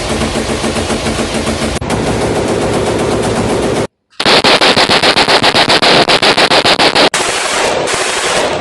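Automatic gunfire: dense, continuous shooting that cuts out briefly about four seconds in, then a run of rapid shots at about ten a second for some three seconds, then more dense fire.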